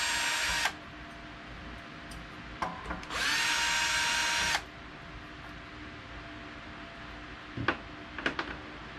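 Power drill-driver backing out the Torx bolts of a bike's disc brake rotor: one run ends just under a second in, then after a brief blip a second run of about a second and a half starts with a quick rising whine. A few sharp clicks near the end.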